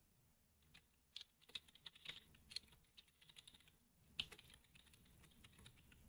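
Faint typing on a computer keyboard: irregular single keystroke clicks, one a little louder about four seconds in.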